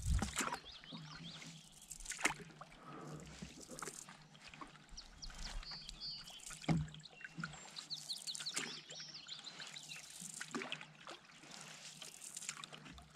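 Canoe paddle strokes in calm water, with water trickling and dripping off the blade and a few sharp knocks, the loudest about two seconds in and near the middle. Small birds chirp briefly in the middle.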